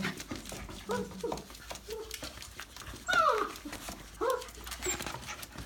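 F1b goldendoodle puppies whimpering: several short, high whines, the loudest about three seconds in, falling in pitch.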